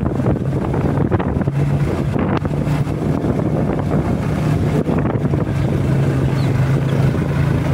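Motorcycle engine running at a steady speed while riding, with wind buffeting the microphone.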